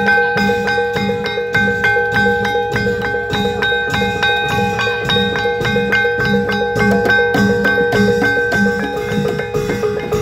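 Javanese gamelan: bronze saron-type metallophone keys struck with wooden mallets in fast, even strokes, their ringing tones sustained over a low kendang drum beat.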